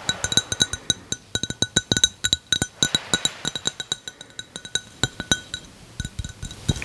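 Quick, irregular tapping on a hard object that rings at the same few pitches with each tap, typical of ASMR tapping.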